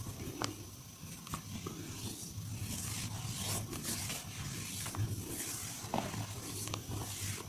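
Hands massaging bare skin: repeated rubbing and swishing strokes, with scattered sharp clicks and taps, over a low steady hum.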